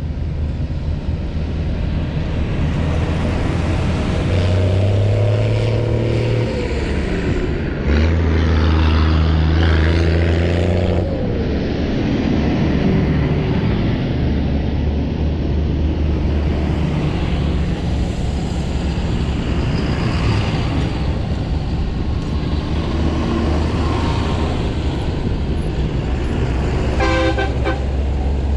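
A procession of farm tractors, among them a blue New Holland and a green John Deere, driving past one after another with their diesel engines droning, the pitch shifting as each one goes by. A horn sounds in quick repeated toots near the end.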